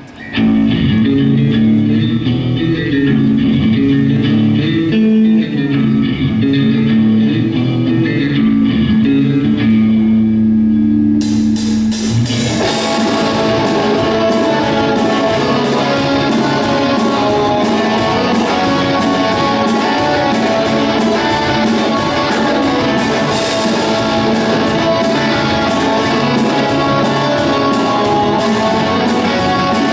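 Live rock band playing: an intro on electric guitars and bass with no drums, then about eleven seconds in the drums and cymbals come in and the full band plays on with a fast, steady beat.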